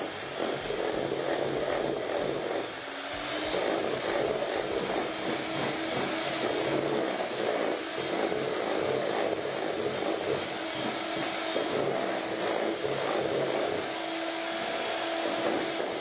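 Electric hand mixer running steadily, its beaters whisking a creamy butter, sugar and egg mixture in a stainless steel bowl.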